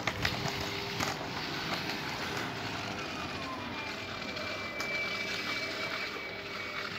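A motor vehicle running and passing, with a steady hum and a tone that falls in pitch partway through.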